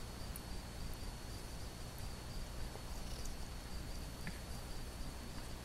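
Quiet outdoor background noise: a low rumble under a faint, steady high-pitched whine, with a few faint ticks.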